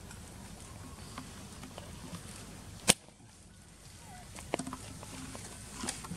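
One sharp, sudden click about three seconds in, over a quiet outdoor background, followed by a few faint ticks and rustles near the end as macaques pick through grass and leaf litter.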